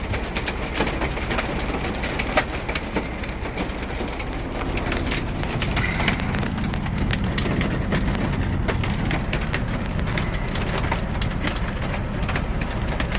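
Hail and rain pelting a semi truck's cab in a storm: a steady rush of rain with a rapid, irregular patter of sharp ice hits on the truck, pushed by wind.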